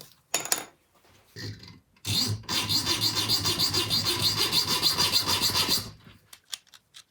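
A small saw cutting a notch into a steel hex screwdriver bit, so that the bit holder's spring latch can catch it. A few short scrapes, then about four seconds of fast, even scraping strokes, ending with a few light clicks of handling.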